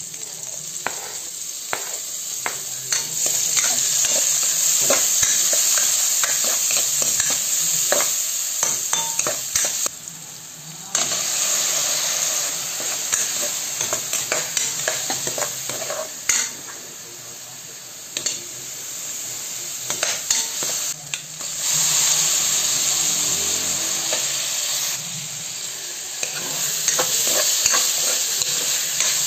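Garlic, onions and then cubed pork sizzling as they are sautéed in a pan, with a metal spatula stirring and scraping against the pan in quick clicks. The sizzle swells and eases several times.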